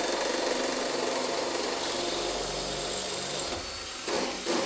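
DeWalt 20V Max cordless drill running steadily under load as it works on the trailer's door-handle fasteners, stopping about three and a half seconds in. A couple of short knocks follow near the end.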